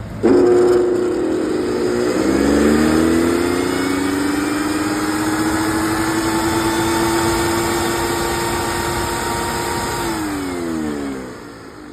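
Makita MLM2301 corded electric lawn mower switched on about a quarter-second in, its motor and blade whining up to speed and running steadily, then switched off near the end, the pitch falling as the blade coasts to a stop.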